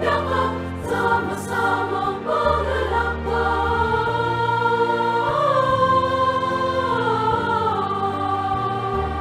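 Music: a choir singing a slow melody over long-held low bass chords.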